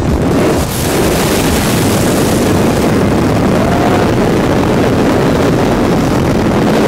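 De Havilland Tiger Moth biplane's engine running in flight, heard from the open cockpit under heavy wind rush on the microphone. There is a brief dip about half a second in, then a stronger hiss of wind for a couple of seconds.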